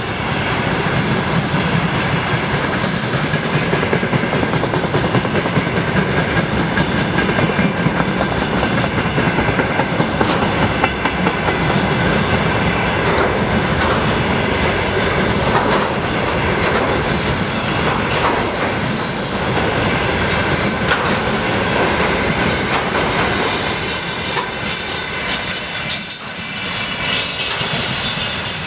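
Container wagons of a freight train rolling past close by: a steady rumble of wheels on rail, with thin, high wheel squeals coming and going and the odd clack over rail joints.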